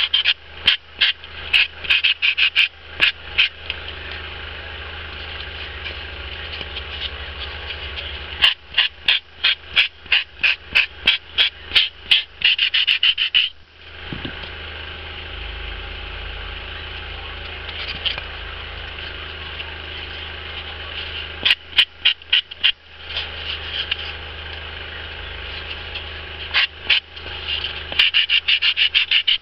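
Sanding file rasping over a foam ball in quick back-and-forth strokes, about four or five a second. The strokes come in several bursts with pauses between, over a low steady hum.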